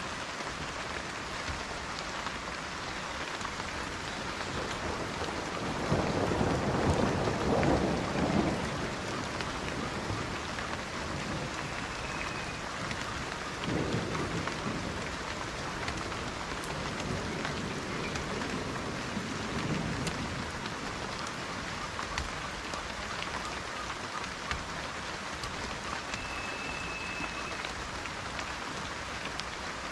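Steady rain with rolls of thunder during a thunderstorm. The loudest roll comes about six seconds in and lasts a couple of seconds, a shorter one near fourteen seconds, and a fainter one around twenty seconds.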